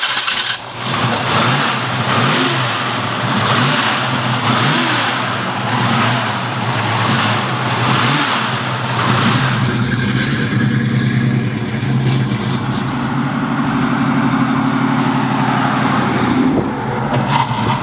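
1969 Chevrolet Camaro's 396 big-block V8 with headers, freshly started and running loudly. It is revved a few times in the first half, then runs at a steady speed from about ten seconds in.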